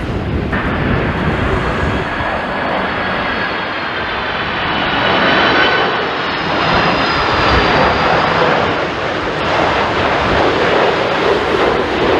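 Jet airliner engines running loud and steady, a dense rush with thin high whining tones over it, swelling a little midway.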